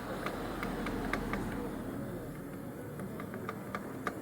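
Irregular light metallic clicks and taps, a few a second, from motorcycle clutch parts being handled and worked on while a suspected bad bearing is being removed.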